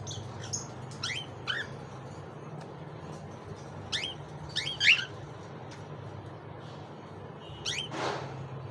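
Pet cockatiels chirping: short, quick sweeping chirps in small clusters, the loudest about five seconds in, with a harsher, noisier call near the end. A steady low hum runs underneath.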